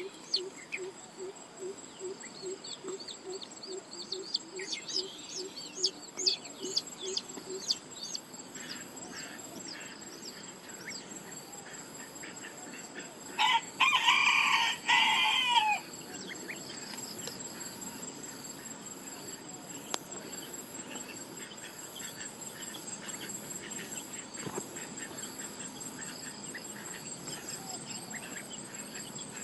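A rooster crows once, about halfway through, a single call of about two seconds and the loudest sound. Before it, a run of low, evenly spaced pulses and short high bird chirps; a steady high-pitched insect buzz runs underneath.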